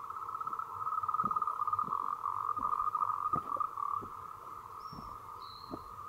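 A steady, high-pitched chorus of calling wild animals, with a rapid pulsing call rising louder above it for a few seconds. Near the end come two brief high bird whistles, and faint low thumps recur about once a second.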